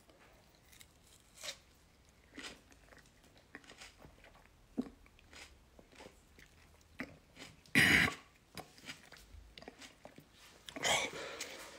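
A person chewing a bite of raw habanero pepper close to the microphone: soft, scattered crunching and wet mouth clicks. A louder brief noise comes about eight seconds in, and a louder rushing stretch near the end.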